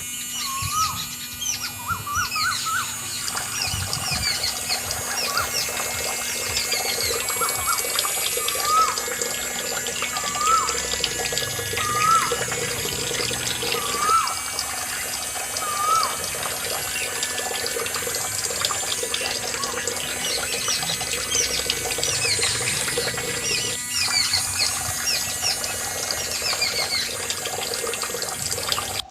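Birds chirping and calling over a steady wash of running water, with a short rising call repeating about every two seconds through the first half.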